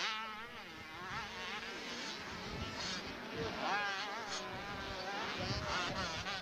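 Small 80cc two-stroke motocross bikes buzzing on the track, their high-pitched engine notes rising and falling quickly as the riders work the throttles, more than one engine heard at once.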